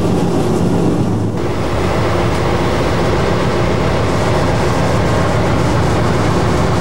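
Diesel locomotive running down the line: a steady engine drone mixed with the rumble of wheels on rail.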